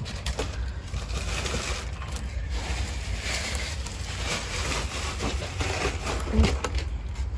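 Rustling and crinkling of packing material as unpacked glass vases are handled, over a steady low rumble.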